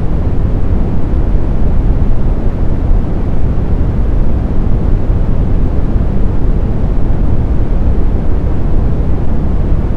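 Steady synthetic brown noise: an even, deep rushing hiss weighted toward the low end, with no tones and no changes.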